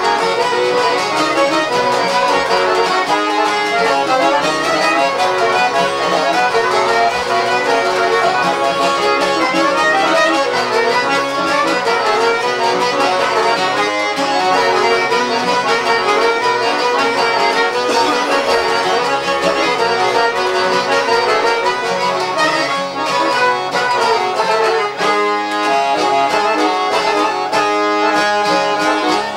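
Instrumental passage of folk music, led by accordion and violin playing a fast running melody.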